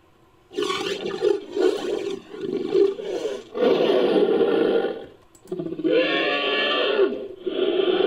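Made-up Eustreptospondylus roar sound effects, built from other creature sound clips: a string of long roaring calls with wavering pitch, separated by short breaks, after a brief pause at the start.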